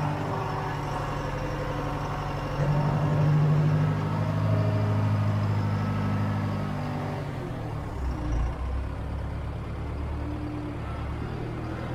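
John Deere 410 backhoe engine running under working load, pulling harder from about two and a half seconds in and easing back after about seven seconds.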